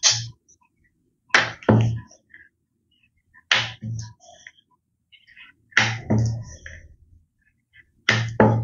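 Wooden rolling pin rolling roti dough back and forth on a steel rolling board, in pairs of strokes about every two seconds, each with a low rumble from the metal board.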